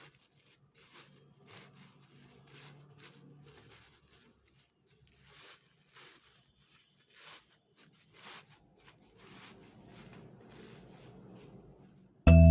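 Tissue paper rustling and crinkling in irregular, faint bursts as its layers are pulled apart one by one. Guitar music starts suddenly at the very end.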